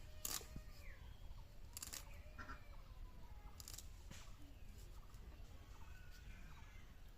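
A few sharp clicks or taps over a quiet background, with faint wavering calls that may be birds.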